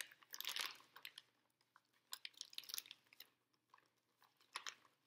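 A paper snack bag crinkling and rustling in irregular short bursts as hands dig into it.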